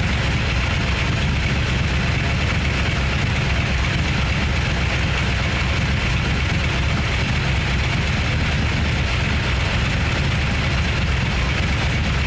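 A 1964 Chevy Impala's carbureted engine running steadily with the hood open.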